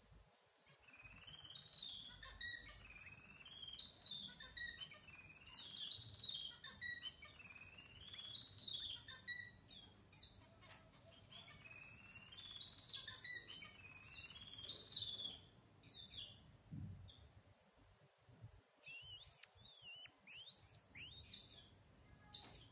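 Red-whiskered bulbul giving a run of soft warbling twitter, phrases rising and falling in pitch about every two seconds, then a pause and a few short, high whistled notes near the end.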